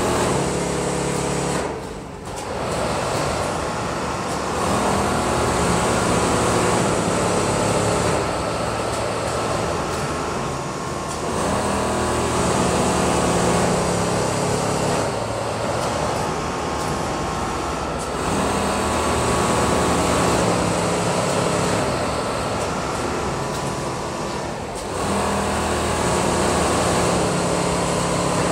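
Richpeace automatic sewing machines stitching, a steady mechanical hum and whir that dips briefly every few seconds.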